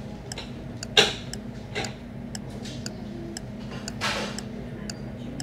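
Cutlery and plates handled on a table: a sharp clatter about a second in, a smaller one shortly after, and a longer scrape about four seconds in, over a steady low hum.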